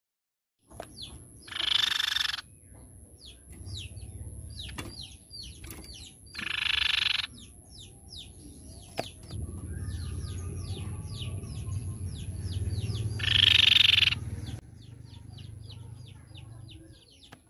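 Crescent-chested babbler (tepus pipi perak) calling: three loud, harsh calls of about a second each, the first about a second in, the next around six seconds and the last around thirteen seconds. Between them run rapid short falling chirps, over a steady thin high tone and a low rumble.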